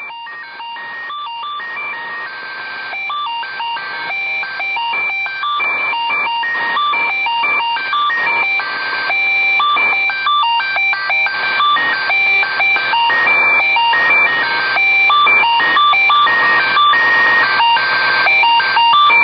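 Electronic film score made of dense, rapidly switching beeping tones like telephone dialing tones or signal chatter, thin and band-limited as if heard over a phone line. It swells steadily louder throughout.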